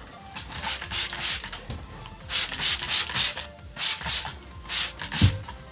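Trigger spray bottle of orange cleaner squirting onto a speaker cabinet: about a dozen short hissing sprays in quick clusters, the trigger clicking with each pump, with a pause about two seconds in.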